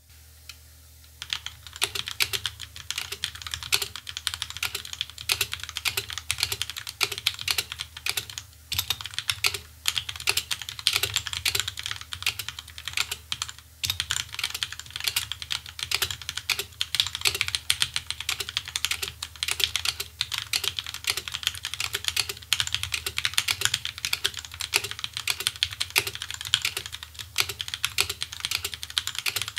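Typing on a stock, unmodded Feker Machinic 02 mechanical keyboard with Gateron Milky Yellow Pro linear switches. Fast, continuous keystroke clicks start about a second in and keep a steady rhythm.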